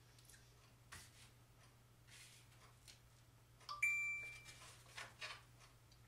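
A single short electronic chime from a smartphone about four seconds in, starting sharply and fading within a second. Around it are faint rustles of handling and a low steady hum.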